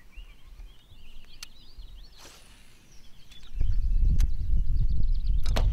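Faint birdsong over quiet outdoor background, then about three and a half seconds in a loud, unpitched low rumble sets in and stays, with a few sharp clicks.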